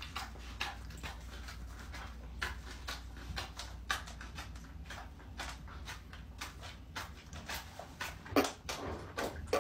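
Dog making a series of short, irregular noises, with the loudest about eight and a half seconds in, under a low steady hum that fades out halfway through.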